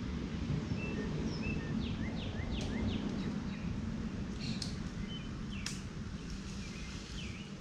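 Small birds chirping, short repeated calls and quick falling chirps, over a steady low rumble, with a few sharp clicks.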